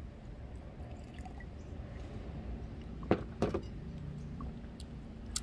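A sip of coffee from a mug, then the mug set back down on a glass tabletop: two short, sharp sounds about three seconds in, over a low steady hum.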